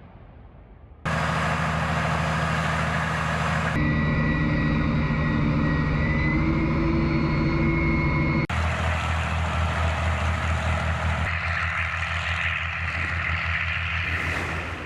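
Heavy truck diesel engine running steadily, heard across several abruptly cut shots, with a slight rise in engine pitch around the middle.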